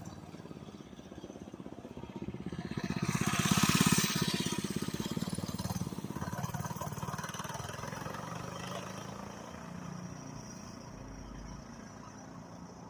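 99cc minibike's small engine riding past: it grows louder to a peak about four seconds in, then fades as it moves away.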